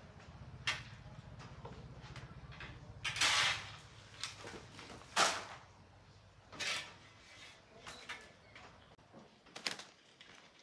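Irregular knocks, clicks and scrapes of hard objects being handled, with two longer scraping strokes about three and five seconds in, over a faint low hum that fades near the end.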